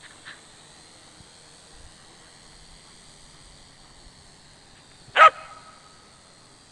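A dog barks once, a single short bark a little over five seconds in.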